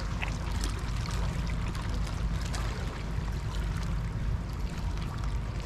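A steady rushing noise of water and wind with a heavy low rumble, and a few faint ticks.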